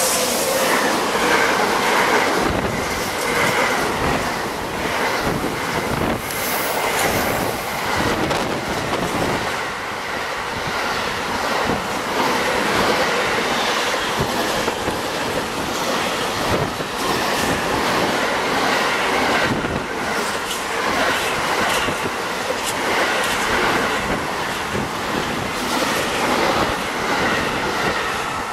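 Intermodal container freight train, hauled by an SNCF BB 26000 electric locomotive, rolling past close by on a tight curve. The wheels squeal against the rails as the curve forces them round, with steady clicking of wheels over rail joints.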